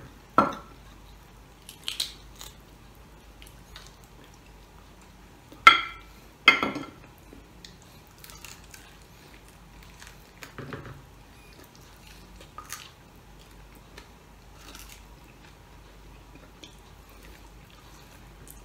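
Close-up sounds of a person gnawing and chewing on a crispy pata pork bone: sparse short crunches and clicks against a quiet background. Two louder sharp sounds come close together a little before halfway.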